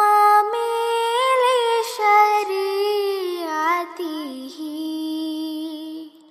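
A solo high voice singing a naat in Arabic, unaccompanied, drawing out the words 'hadi al-umam' and 'li-shari'atihi' in long held notes with wavering ornaments and gliding falls in pitch.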